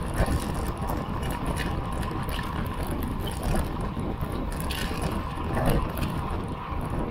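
Wind rushing over the microphone of a camera mounted on a moving road bike, with tyre hum on asphalt and a couple of brief louder bumps.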